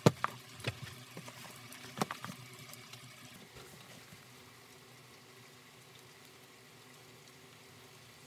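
A few light knocks as the bag panel and a plastic block are handled and set down on a cutting mat, then faint scraping of a plastic spreader working glue along a seam edge, fading out about four seconds in.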